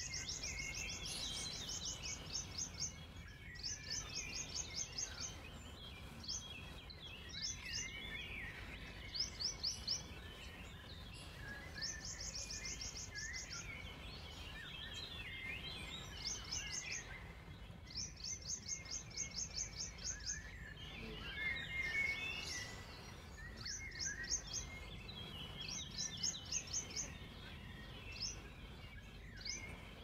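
Small songbirds singing: one repeats fast runs of high, sharp notes, about seven a second and lasting a second or two, every couple of seconds, while others chirp at a lower pitch between them. A steady low background rumble runs underneath.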